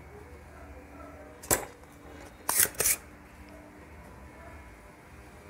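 Spring-loaded desoldering pump snapping as its plunger is released to suck molten solder off a voltage regulator's pins: one sharp snap about a second and a half in, then two more close together about a second later.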